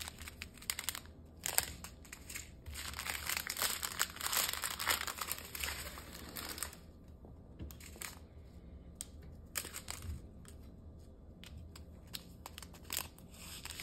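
Small plastic bags of diamond-painting drills crinkling and rustling as they are handled, dense for the first six seconds or so, then giving way to scattered light clicks and rustles.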